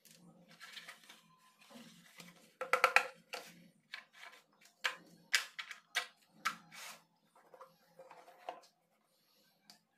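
Packaging being handled on a table: a phone's cardboard box and its parts, charger and cable picked up and set down. Irregular clicks, taps and knocks, with the loudest cluster about three seconds in.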